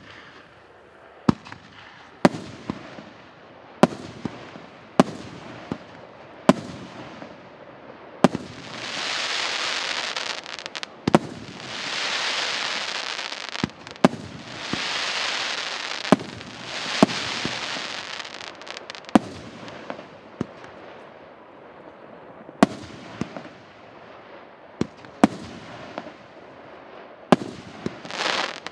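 A 28-shot, 1.8-inch consumer fireworks cake firing: a sharp bang every second or so as each shell bursts. From about 8 to 18 seconds in, and again near the end, the bangs are joined by long stretches of dense crackling from the crackling-willow and crackling-chrysanthemum effects.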